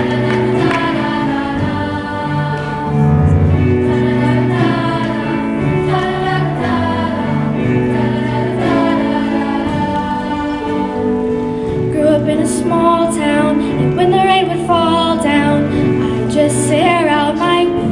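Music: a choir singing, with held chords underneath and sung lines gliding above them.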